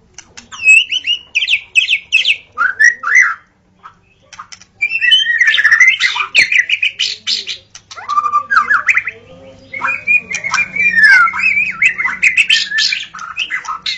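White-rumped shama singing: a varied run of clear whistles, fast repeated notes and harsh chattering calls, with a short pause about four seconds in.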